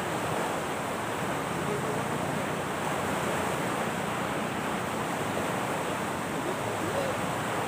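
Steady rushing noise of wind and surf on an open shore, with faint voices in the background.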